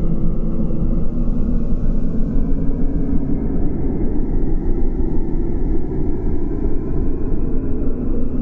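Deep, steady rumbling noise with a slow sweep that falls and then rises again, a rumble effect in an ambient electronic music track.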